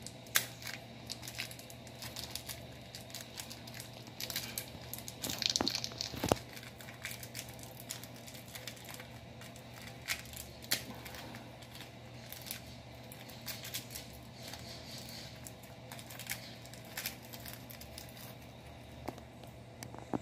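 Hands fitting a new Motobatt gel battery and its terminal connectors into a scooter's battery compartment: scattered clicks and taps of small parts, with crinkling, crackling handling noise over a faint steady hum. The sharpest click comes about half a second in, and the crackling is busiest around five to six seconds in.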